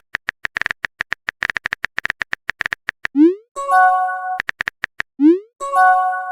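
Synthetic electronic sound effects: a rapid run of short clicky blips, twice broken by a quick rising glide followed by a short held multi-note tone.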